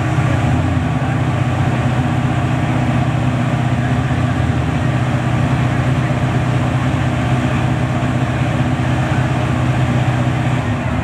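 Drag race car engine idling steadily with a deep, even note, the note dropping away near the end.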